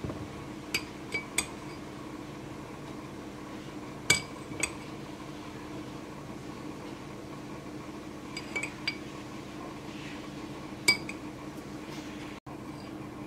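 A metal spoon clinking against a dish, in short irregular groups of sharp clinks with a brief ring, the loudest about four and eleven seconds in, over a steady low hum.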